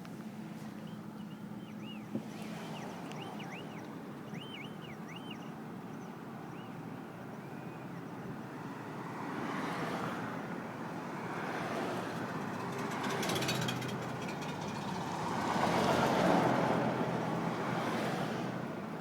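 Road vehicles passing, several swells of tyre and engine noise that rise and fade, the loudest about sixteen seconds in, over a steady low hum. A few short high chirps in the first few seconds.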